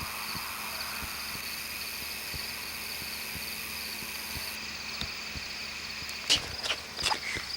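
Steady chorus of insects trilling, likely crickets, with a few sharp clicks in the last second and a half.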